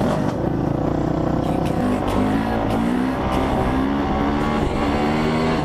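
Honda CRF450R's four-stroke single-cylinder engine running under the rider, its pitch holding steady at first, then climbing and dropping back in steps several times from about two seconds in as the bike accelerates.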